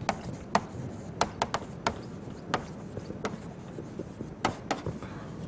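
Chalk writing on a chalkboard: about a dozen sharp, irregular taps and clicks as the letters are formed.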